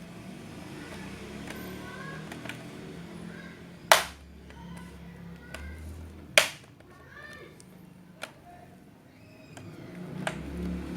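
Plastic laptop bottom casing being pressed and snapped into place: two sharp clicks about two and a half seconds apart, then a few lighter clicks.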